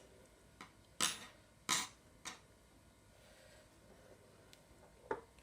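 Quiet kitchen handling sounds as pastry wraps are rolled on a worktop: three short rustles a little over a second in, then a brief faint sound near the end.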